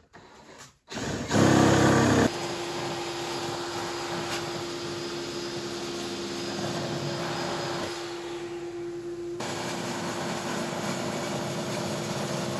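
Table saw starting up about a second in, then running steadily while its blade cuts into square wood stock that a cordless drill spins against it, turning the stock into a dowel. The cutting noise drops away around eight seconds in and picks up again a second and a half later.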